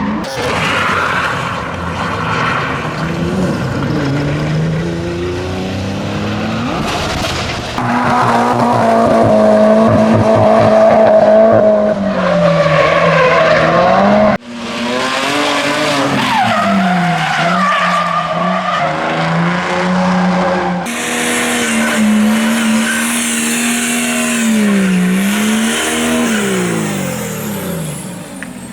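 Drift cars' engines revving up and down with tyres squealing and skidding. The sound changes abruptly three times as one take gives way to another.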